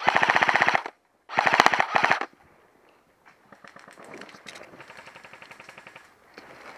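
Airsoft guns firing on full auto: two loud, rapid bursts of about a second each close by, then quieter rapid fire carrying on from about three seconds in.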